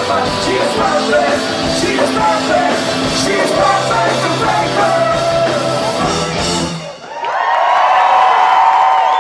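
A live rock band plays the last bars of a song with drums, guitars and vocals, and stops abruptly about seven seconds in. The crowd then cheers, yelling and whistling.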